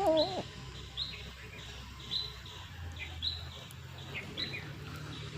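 A cat gives a short meow with a wavering pitch right at the start. After it, short high chirps repeat about once a second in the background, like a small bird calling.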